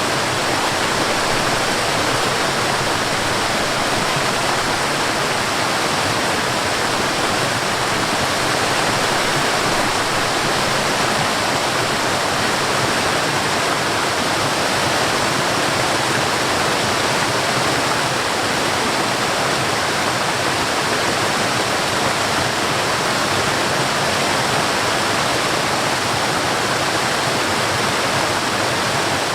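Water rushing over a small waterfall and along a stream: a steady, even rush with no breaks or changes.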